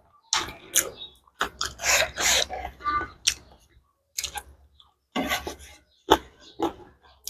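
Close-up chewing and mouth sounds of a person eating, coming in irregular bursts with short pauses between.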